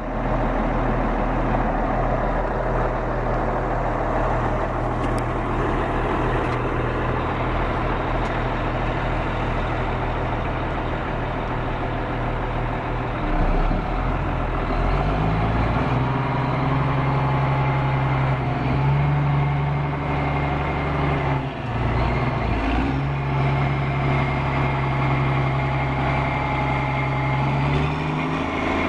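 Caterpillar 160H motor grader's diesel engine running steadily, then revving up about halfway through and holding the higher speed, with a brief drop and recovery a little later before it settles back down near the end.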